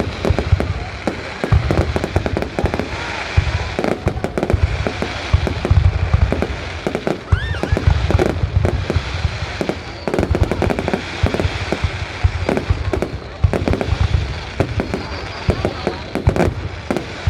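Fireworks going off in a dense, continuous barrage: deep booms one after another with sharp cracks and crackling over them.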